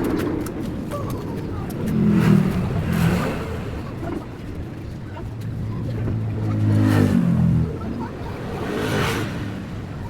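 A small engine revving up and falling back twice, a short burst about two seconds in and a longer one around six to seven seconds, over a steady background rumble.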